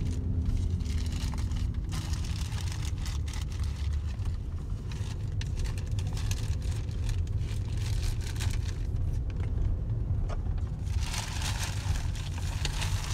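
Steady low road rumble inside a moving car's cabin, with scattered clicks and rustling from handling close to the microphone that thicken about two seconds before the end.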